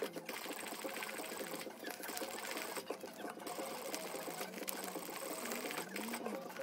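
Industrial sewing machine stitching fabric: a fast, steady run of needle strokes, with a few brief stops and restarts as the seam is guided round a curve.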